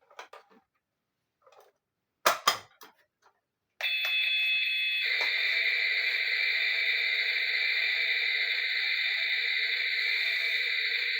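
Light clicks and taps of small plastic toy pieces being handled, with a sharper cluster of clicks a little after two seconds. About four seconds in, a loud steady high-pitched electronic buzzing starts and holds without a break.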